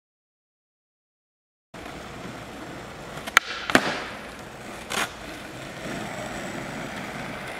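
Silence for nearly two seconds, then skateboard wheels rolling on asphalt. A kickflip: a sharp pop of the tail and the board's clack on landing less than half a second later, then another clack about a second after that.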